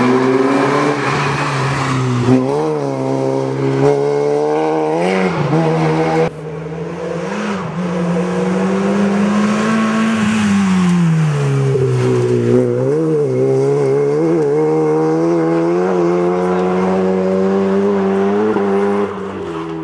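Renault Megane Coupe rally car's engine revving hard, its pitch climbing and dropping in short steps. About six seconds in the sound drops abruptly, then one long climb and fall before it runs steadily at high revs.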